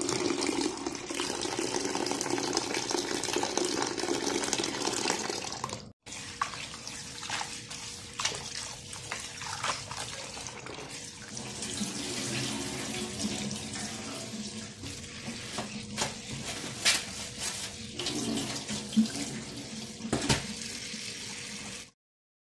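Kitchen tap running steadily onto parsley in a plastic bowl in the sink. After a brief break, the sound turns quieter and uneven, with water splashing and several sharp knocks as wet parsley is rinsed and handled in a stainless-steel colander.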